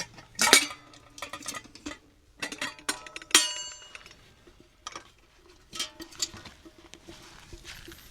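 Camp cookware and a cup being handled while coffee is made, with a scatter of metal and ceramic clinks and knocks. The loudest come about half a second and three and a half seconds in, and some ring briefly.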